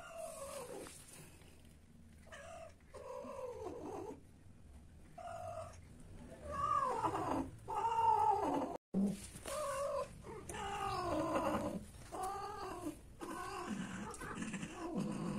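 Cats yowling during mating: about a dozen drawn-out caterwauls, each rising and then falling in pitch, loudest around seven to eight seconds in.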